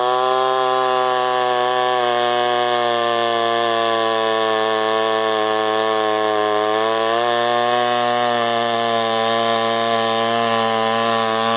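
Echo 1201 chainsaw running at high speed while cutting wood, its engine note holding nearly steady with a slight sag in pitch about six seconds in.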